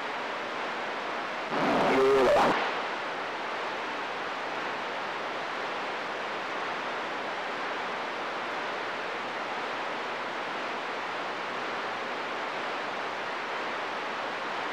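CB radio receiver hissing with steady open-squelch static. About two seconds in, a short burst of voice cuts through for about a second, then the static runs on.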